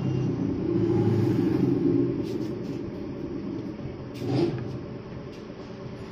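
Low rumble of road traffic going by, swelling in the first two seconds and fading away, with a few small clicks over it.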